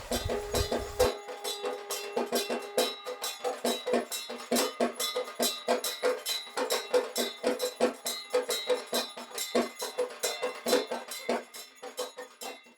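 Fast, even percussion, about four or five strikes a second, with a steady metallic ringing over the beat.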